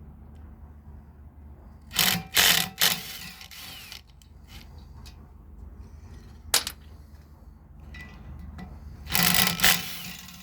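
Hand tools working on a brass valve being taken apart: short bursts of metal scraping and clanking, with one sharp click about six and a half seconds in, over a steady low hum.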